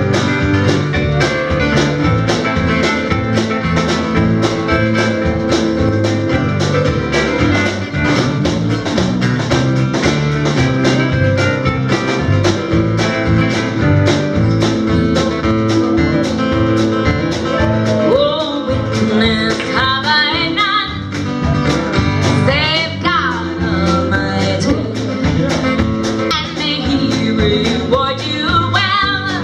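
Live band playing an up-tempo song with steadily strummed acoustic guitar; a sung melody comes in a little past the halfway point.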